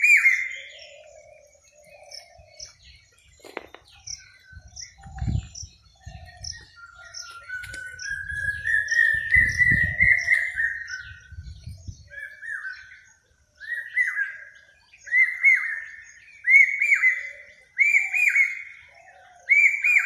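Wild birds calling in forest: one bird repeats a short loud call about every second and a half, another gives a long, slowly rising call around the middle, with faint high chirps from others throughout.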